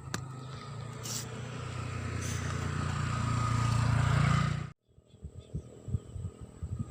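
A motor vehicle engine running steadily and growing louder, as if approaching, then cut off suddenly about three-quarters of the way through, followed by low crackling noise.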